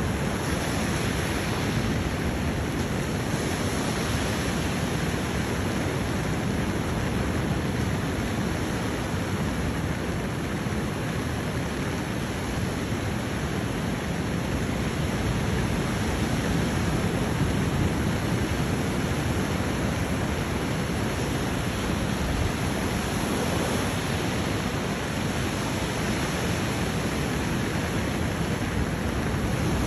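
Steady rushing of ocean surf on a beach, an even roar with no single waves standing out.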